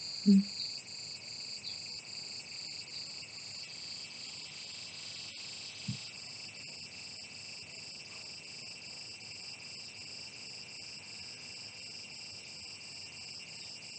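Insects chirping in a steady, high-pitched pulsing trill of several pulses a second. A brief murmur comes just after the start, and a faint low thud about six seconds in.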